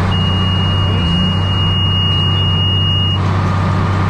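Case 2294 tractor's diesel engine running steadily while pulling a working Vermeer 5420 round baler, heard from inside the cab. A steady high-pitched electronic beep sounds from the start and cuts off about three seconds in.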